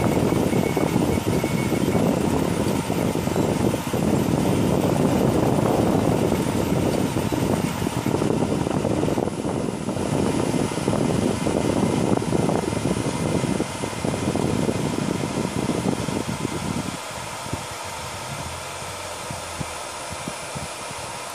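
Desktop 3D printer running as a print finishes: a rough, uneven machine noise from its motors and fans, which drops about seventeen seconds in to a steadier, quieter fan hiss as the print head moves off the part.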